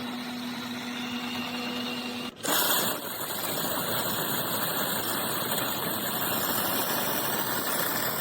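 Miele CM 5310 automatic coffee machine running through its brewing cycle: a steady hum for about two seconds, then a brief break and a louder, even whirring that carries on.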